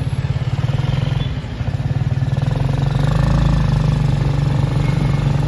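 Motorcycle engine of a Philippine tricycle (motorcycle with sidecar) running under way, a steady throb that gets louder about two seconds in.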